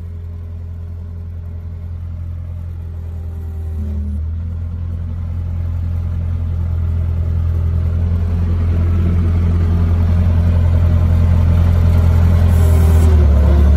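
Bobcat skid steer's engine running steadily, growing louder throughout, with a little clatter near the end.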